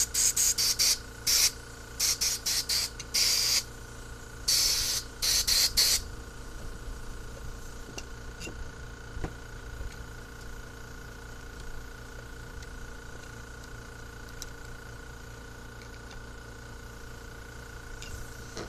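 Compressed-air blow gun blowing through the passages of a four-barrel carburetor, a rapid series of about a dozen short hissing bursts over the first six seconds, checking the passages are clear. After that only a faint steady hum remains.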